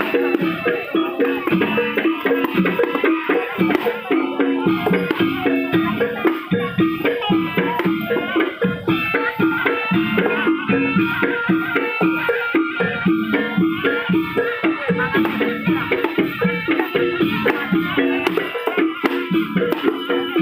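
Javanese barongan accompaniment music: a gamelan-style percussion ensemble plays a fast, steady beat under repeated pitched metallic notes.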